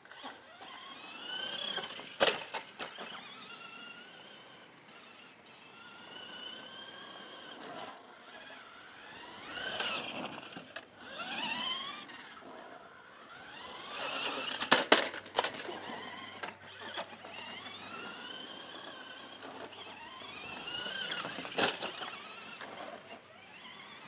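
Tamiya Lunch Box radio-controlled monster truck's electric motor and gears whining, rising and falling in pitch as the throttle is worked. A few sharp knocks cut through, the loudest about fifteen seconds in.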